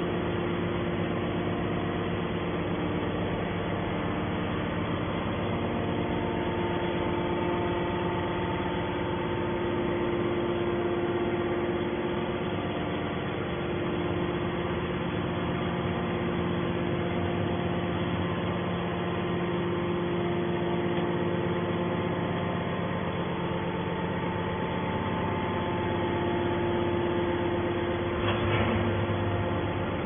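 Hydraulic power unit of a scrap metal baler running steadily: an electric-motor-driven pump hum with several steady tones, with slight changes in tone as it works.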